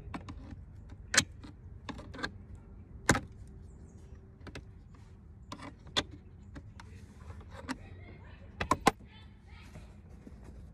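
Sharp metallic clicks and light scraping as a flat screwdriver pries a small metal retaining pin out of a Toyota Camry centre-console armrest hinge. The clicks come every second or so at first, then a pair close together near the end.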